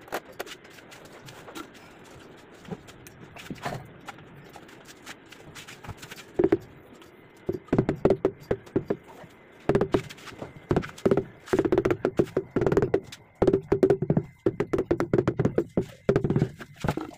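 Knocking on a large ceramic wall tile as it is set into place: scattered clicks at first, then quick runs of hollow-sounding taps from about six seconds in.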